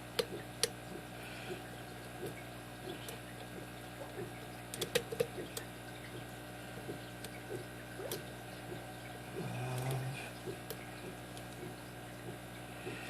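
Faint metal clicks and light scraping of a lock pick working the pin stack of a brass padlock under tension-wrench pressure, with a quick run of louder clicks about five seconds in. A steady low hum sits underneath.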